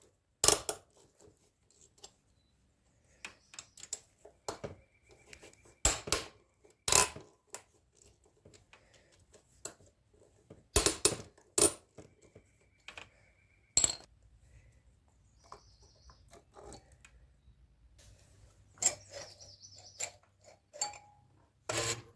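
Metal tools and small metal parts clinking and clanking, a dozen or so separate knocks with pauses between them. A few brief metallic rings follow some of the knocks.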